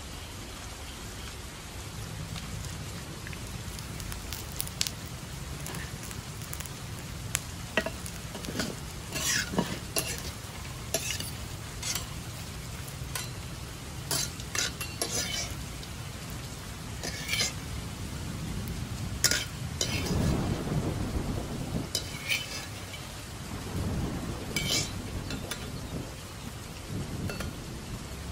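Steady rain with a low rumble runs throughout. From about four seconds in come scattered sharp clicks and clinks, with heavier scraping about two-thirds of the way through, as a metal spatula and strainer stir and scoop popcorn in a wide metal pan.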